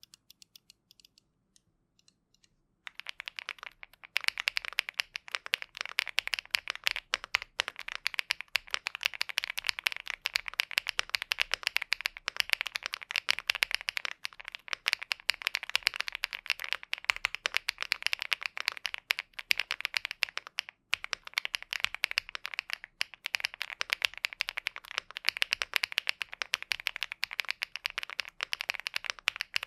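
Elec Fox INKY75 75% gasket-mounted mechanical keyboard with a flexible polypropylene plate and foam dampening, typed on fast and continuously: a dense run of soft keystroke clicks, starting about three seconds in after a few faint taps.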